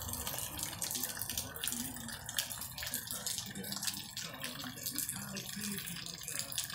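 Steady rain falling on wet concrete and puddles, with individual drops splashing close by.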